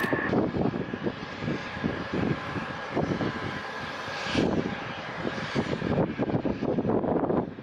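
Jet engines of a large military transport aircraft climbing out after takeoff: a steady, rough rumble with a faint high whine.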